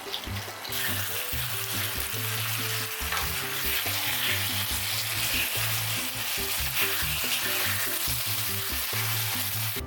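Food sizzling and frying in a hot pan, starting abruptly about a second in and stopping suddenly at the end, over soft background music.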